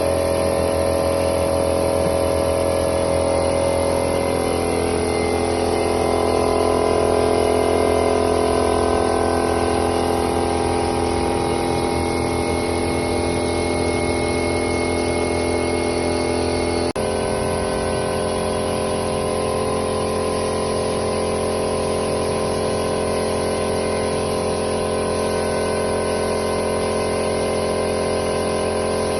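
A motor-driven machine running steadily. Its pitch shifts between about four and eight seconds in, and its tone changes abruptly about seventeen seconds in.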